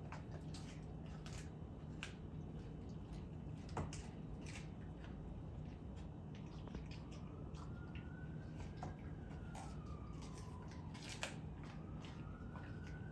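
Bull terrier chewing a raw quail: irregular wet crunches and sharp clicks of teeth on small bones. In the second half a faint siren slowly rises and falls twice.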